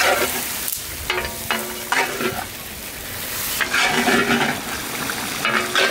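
Potato, carrot and cauliflower curry sizzling in a large iron karahi while a long metal ladle stirs it, scraping and ringing against the pan in several short strokes at uneven intervals.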